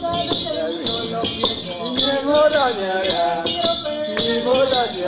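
Music with a gliding melodic line over a steady beat of jingling, shaker-like percussion, about two strokes a second.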